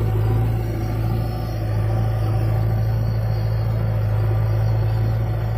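Steady low drone of diesel engines running side by side: a JCB backhoe loader working its arm beside an Eicher tractor hitched to a trolley.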